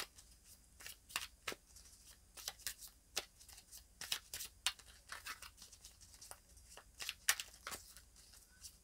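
Tarot cards being handled while cards are drawn from the deck: faint, scattered clicks and soft rustles of card against card and the cloth.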